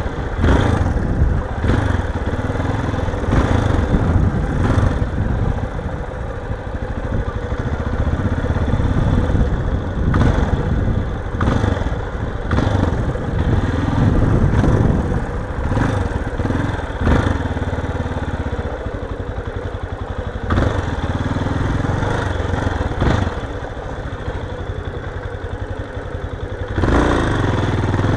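Yamaha XTZ 250 Ténéré's single-cylinder engine running as the bike is ridden over rough, rutted dirt, its revs rising and falling. Irregular clattering knocks and thuds come from the bike jolting over the ruts.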